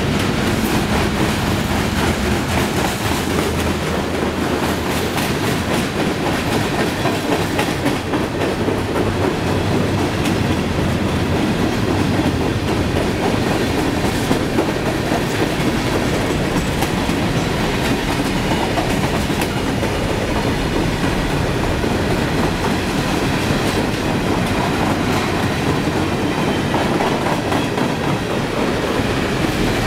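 Freight cars of a CSX train (gondolas, flatcars and tank cars) rolling steadily past at close range: a continuous rumble of steel wheels on rail, with scattered clicks as the wheels cross rail joints.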